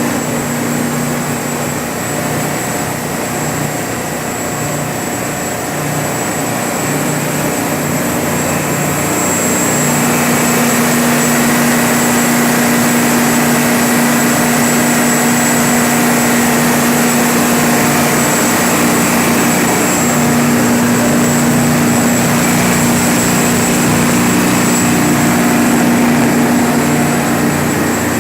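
Detroit Diesel 12V-92TA two-stroke V12 diesel of a Kohler standby generator set running steadily, with a thin high whine over the engine note. It grows a little louder about nine seconds in and then holds steady.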